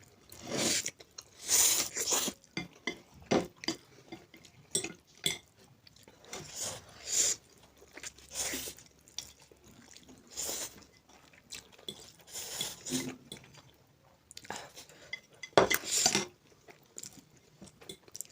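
Spicy instant noodles being eaten: utensils clinking against bowls, along with chewing, in short irregular bursts.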